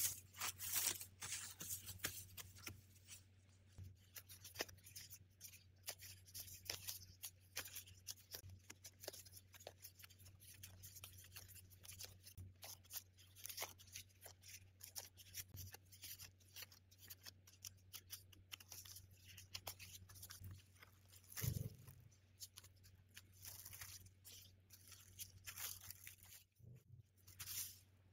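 Faint crinkling and crackling of thin plastic (cling film and disposable plastic gloves) as soft dough is handled and wrapped by hand, in many small irregular crackles. A low steady hum sits underneath.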